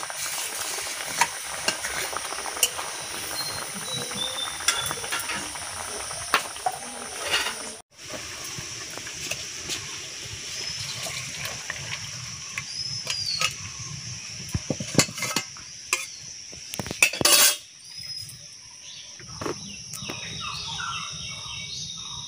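Metal spatula scraping and clanking against an iron wok as simmering fish curry is stirred and then scraped out into a steel bowl, over the steady hiss of the bubbling curry. A loud scrape or clatter comes about 17 seconds in.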